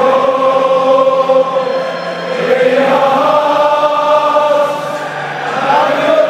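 Background music: a choir singing long held notes that slide to a new pitch now and then.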